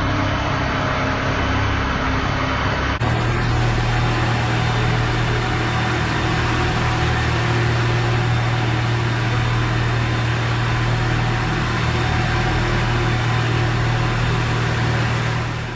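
Olive mill machinery grinding olives into paste: a loud, steady motor hum with an even mechanical noise over it. The hum changes abruptly about three seconds in to a stronger, steadier drone.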